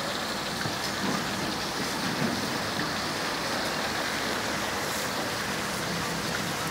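Steady hissing background noise of an outdoor street market, with no clear single source.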